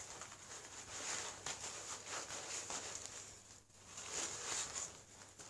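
Fabric bandage wraps rustling and brushing as they are pulled and worked around an arm, in a run of short scratchy strokes.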